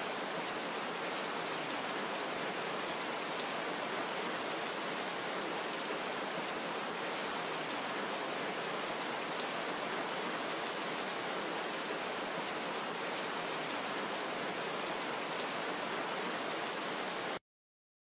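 Steady rain falling, an even hiss without pauses or changes that cuts off suddenly near the end.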